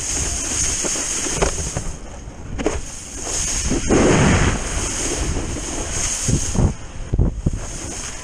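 Water rushing and spraying off a wakeboard as it carves across a lake, with wind buffeting the microphone. The spray swells louder about four seconds in as the board cuts hard and throws up a wall of water.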